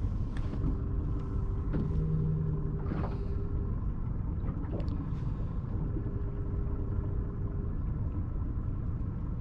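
Boat engine running low and steady with a rumble, a faint hum rising in and out twice.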